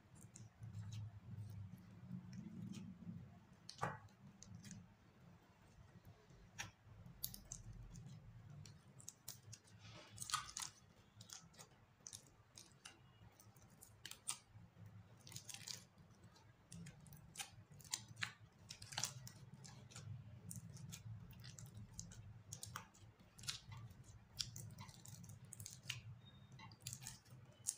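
Hand squishing and kneading clear slime mixed with glitter and beads: faint, irregular sticky crackles and pops.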